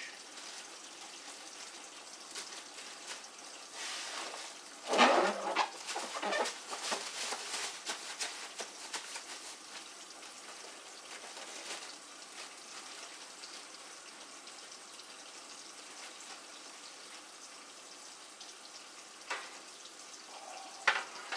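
Food-preparation handling noises at a kitchen counter while pork chops are being coated: a few seconds of rustling and clatter, then a low steady background, and two short knocks near the end.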